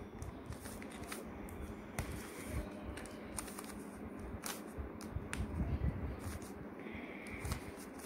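Stickerless plastic 3x3 Rubik's cube being turned by hand in a run of quick moves, its layers giving faint, irregular clicks and rattles.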